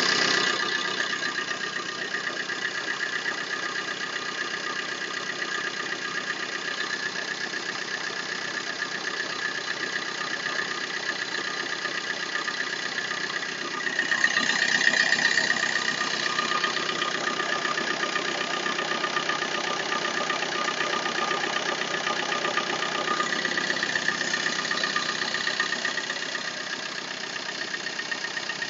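Opel Corsa 1.3 CDTI four-cylinder turbodiesel engine running at idle, with a steady high-pitched tone over the engine sound. The owner calls this a strange noise. It grows louder for a couple of seconds about halfway through.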